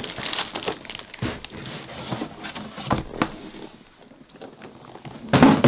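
Cardboard boxes being handled: the printed outer box of a Lego set slid up and lifted off a white inner cardboard box, with scraping, rustling and light knocks, and a short, louder bump near the end.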